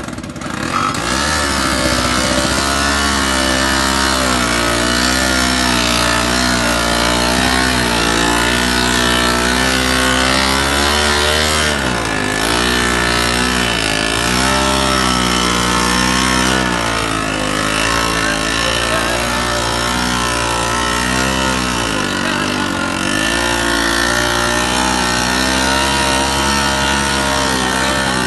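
Homemade mini tractor's Bajaj Chetak scooter engine, a single-cylinder two-stroke, running hard under load as it tows an auto-rickshaw through mud. Its pitch wavers about once a second and sags briefly a few times before picking up again.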